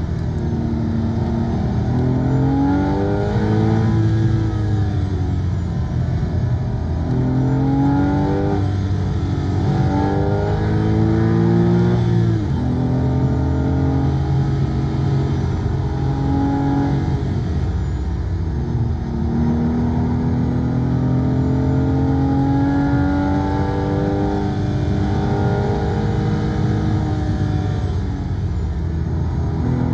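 Porsche 911 (997) Carrera S's flat-six engine under hard driving, its revs climbing and falling again and again, with a sharp drop in revs about twelve seconds in and a long, slow climb near two-thirds of the way through. Road and tyre noise run underneath.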